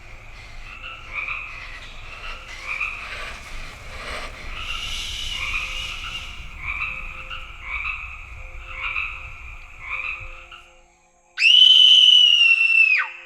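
A series of croaking animal calls repeating roughly every second. Near the end comes a loud, high, held tone lasting about a second and a half, which drops in pitch as it cuts off.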